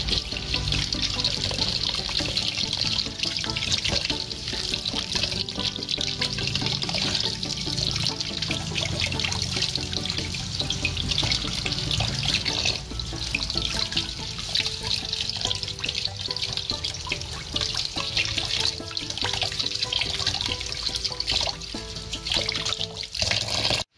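Tap water running and splashing into a stainless steel bowl in a sink as a ginger root is rinsed under it by hand, over background music.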